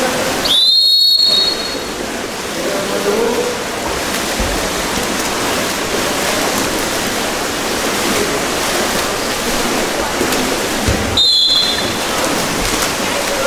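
Referee's whistle blown twice, a short high blast about half a second in and another about eleven seconds in, over a steady wash of splashing pool water and voices.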